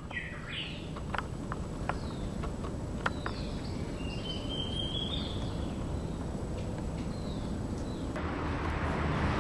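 Tropical forest ambience: a bird gives a few short whistled calls and one longer, held whistle a little after the middle, over a low rumble with a few sharp clicks from the handheld camera. Near the end, a louder, steady hiss takes over.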